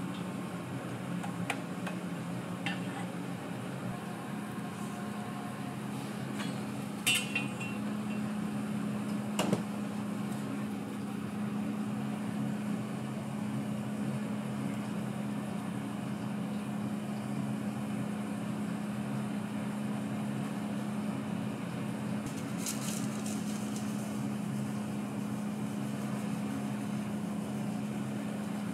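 Steady low hum of kitchen equipment, with a few sharp clinks and taps of utensils and containers; the loudest knock comes about nine and a half seconds in.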